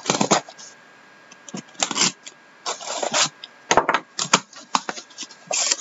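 Sealed cardboard shipping case being cut and torn open: irregular short bursts of scraping and tearing cardboard and packing tape.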